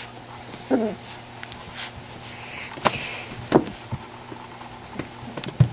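Puppies playing and chewing: scattered short clicks and knocks of claws, teeth and toy, with one short puppy whine about a second in.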